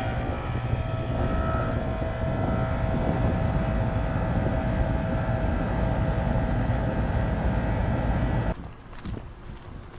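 Outdoor air-conditioning condensing unit running: steady fan rush with compressor hum and a steady whine. It drops off abruptly to a much quieter background about a second and a half before the end.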